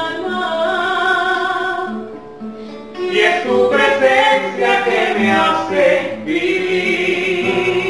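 A song: held sung notes over instrumental backing, dropping away briefly about two seconds in and coming back louder about three seconds in.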